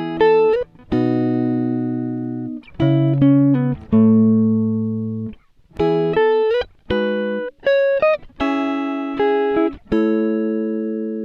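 Background music of plucked notes and chords, each struck sharply and left to ring and fade, in a slow, uneven rhythm.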